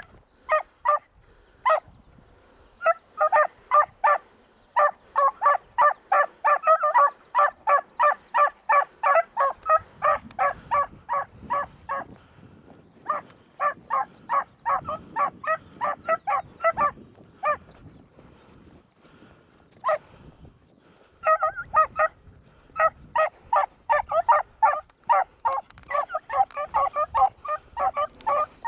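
Beagles baying on a rabbit's track: a fast, steady run of short repeated barks from more than one hound, about three or four a second, easing off briefly near the middle and again for a few seconds later before picking back up.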